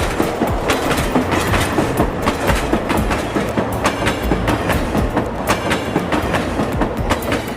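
Train wheels rolling over track with a steady, dense clickety-clack rattle of irregular clicks over a running rumble.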